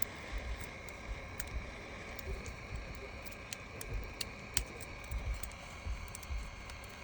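Scattered small clicks and taps of hand repair tools working on a phone's cracked back glass, over a steady faint high-pitched hum.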